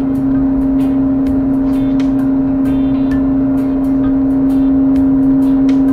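Whirlpool electric clothes dryer running on a test run after a new drive belt: the motor hums on one steady tone over a low rumble of the turning drum, with light ticks several times a second.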